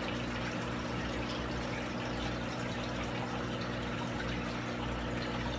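Aquarium filter running: a steady wash of moving water over a low, even motor hum.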